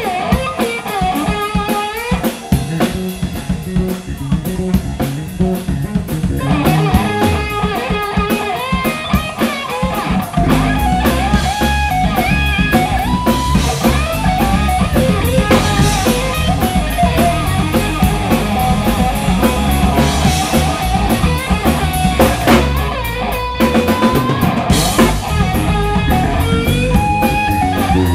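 Live blues-rock band playing an instrumental passage: electric guitar played with a metal slide, over bass and drums. The low end grows heavier about ten seconds in.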